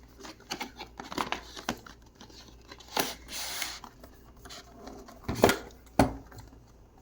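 Packaging being handled and opened: scattered rustles and clicks, a short ripping sound about three seconds in, then two knocks as items are set down on the table near the end.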